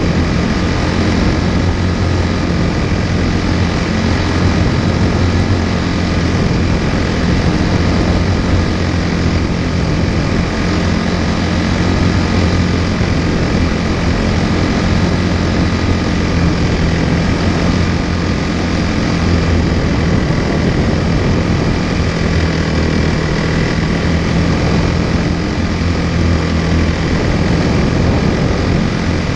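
Quarter midget's single-cylinder Briggs & Stratton Animal engine running at a steady, even speed, heard up close from the onboard camera.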